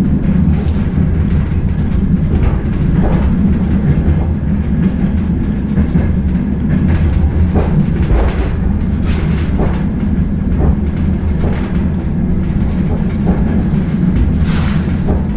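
DR1B diesel multiple unit heard from inside a passenger car while under way: a steady low rumble from the train running, with irregular clacks of the wheels over rail joints.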